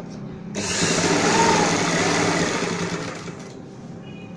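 Industrial sewing machine stitching: a burst of fast stitching starts sharply about half a second in and runs for about three seconds before stopping, over the steady hum of its motor.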